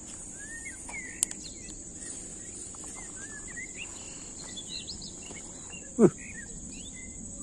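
Swamp-forest ambience: a steady high insect shrilling with birds chirping in short rising and falling notes. A sharp click comes about a second in, and a short, loud downward-sweeping sound about six seconds in.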